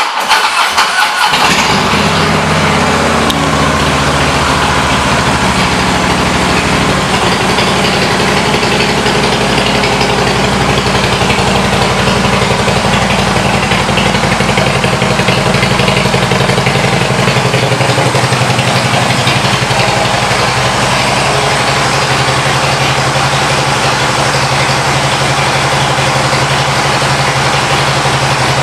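2016 Harley-Davidson Road Glide Special's Twin Cam 103 V-twin with Vance & Hines exhaust starting up: it cranks and catches within about the first second, then settles into a steady idle.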